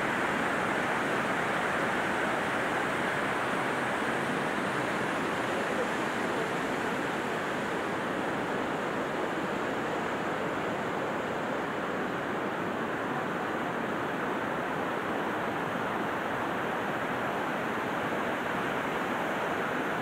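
Steady rushing of a muddy, silt-laden river running over rocks.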